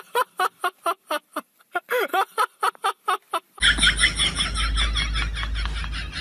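A cat meowing in a quick run of short calls, several a second, each bending up and down in pitch. The calls stop abruptly about three and a half seconds in, giving way to a steady low hum and hiss.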